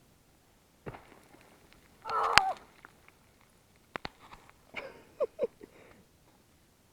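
Scattered scuffs and sharp knocks of footsteps on rocky ground, loudest about two seconds in, with a few brief faint vocal sounds about five seconds in.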